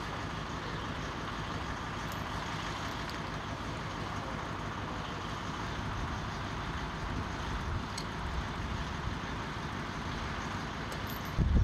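Steady running noise of a heavy vehicle engine, with a few faint clicks; it grows louder and deeper just before the end.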